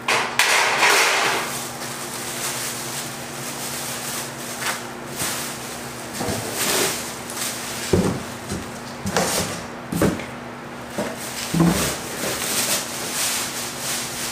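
Cardboard packing rustling and scraping, then a string of knocks and clunks as metal grill parts are lifted out and set down, over a steady low hum.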